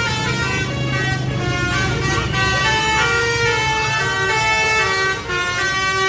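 Telolet basuri horn on a bus: a multi-trumpet musical air horn playing a tune of held notes that step from pitch to pitch, with a low steady hum underneath.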